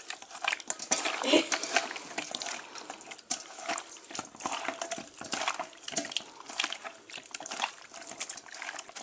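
Hands mixing pieces of fish into a wet spice paste in a steel bowl: a run of short, irregular wet squelches and smacks.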